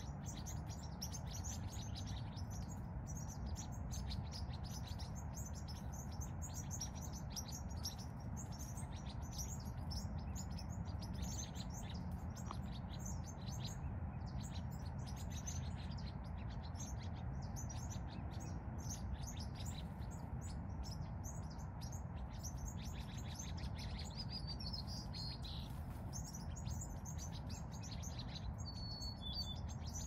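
Many small birds chirping together in a dense, continuous chorus, with a few clearer single calls standing out in the last third. A steady low rumble runs underneath.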